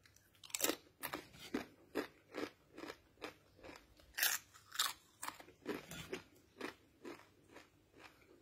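A man biting and chewing dry corn tortilla chips with his mouth close to the microphone, crunching steadily about twice a second.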